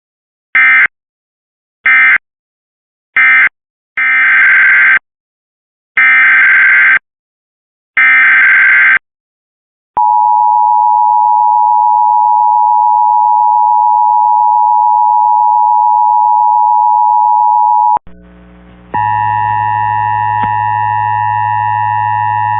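Emergency Alert System data bursts and attention tone. First come three short end-of-message bursts about a second apart, marking the end of the previous alert. Then three longer SAME header bursts two seconds apart open the next alert, followed by an eight-second steady attention tone; after a brief drop, a steady drone of several held tones starts near the end.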